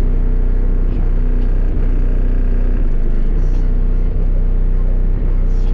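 Car audio system with six 12-inch subwoofers playing bass at high volume: a steady, deep, rumbling drone with steady overtones above it.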